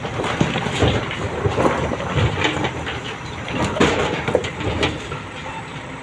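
Large stone blocks knocking and clattering as they tumble out of a tipper truck's raised steel body, dragged out by a backhoe bucket, over steadily running diesel engines. The knocks come thick and irregular, then thin out about five seconds in.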